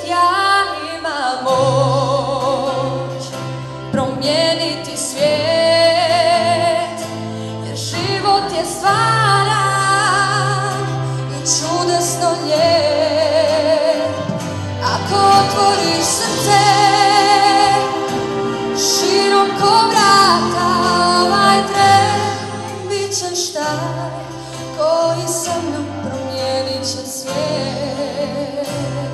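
A teenage girl singing solo into a microphone with vibrato, over a backing track with a steady bass line.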